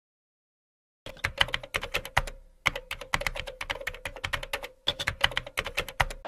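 Computer keyboard typing: quick, irregular runs of key clicks starting about a second in, broken by two short pauses, over a faint steady hum.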